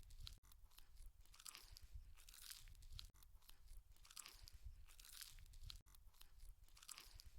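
Faint close-up chewing and crunching of chicken feet in curry, about one chew a second.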